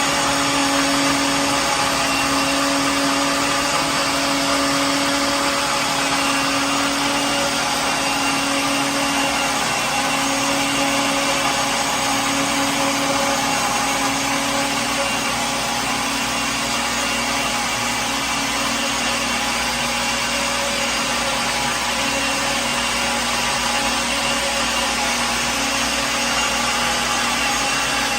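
Kitchen blender motor running steadily at a constant speed, a continuous whirring hum that doesn't change.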